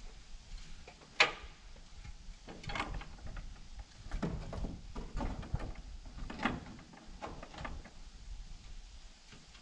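Wooden sliding barn door and its overhead track hardware being worked on by hand: scattered knocks, clicks and scrapes, with one sharp click about a second in.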